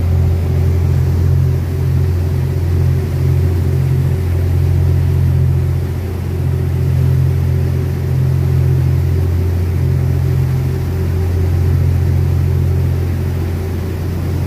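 A motorboat's engines running steadily under way: a loud, steady low drone with a slight pulsing, over a steady rushing hiss.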